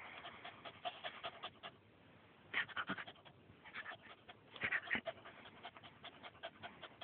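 Jack Russell cross dog panting quickly close to the microphone, about five breaths a second, pausing briefly about two seconds in.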